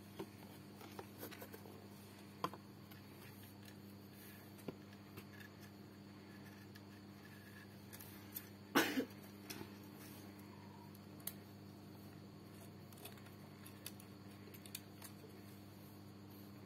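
Faint clicks and taps of a disassembled smartphone, its frame and parts being handled, with one louder, brief noise about halfway through, over a steady low hum.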